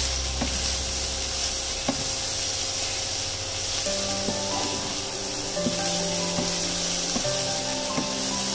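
Shredded shark fish with onion and green chillies sizzling as it is stir-fried in a nonstick frying pan, being mixed with a spatula, with a few sharp taps and scrapes of the spatula on the pan.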